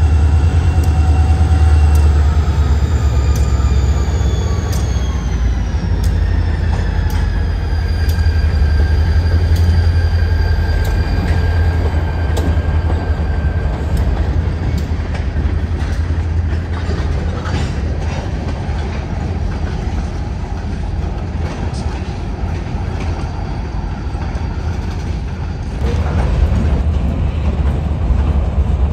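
Freight train passing: an EMD SD40-2 diesel locomotive runs by with a heavy low rumble, its engine tones sliding down in pitch as it goes past. Freight cars then roll by with repeated clicking of wheels over the rail joints.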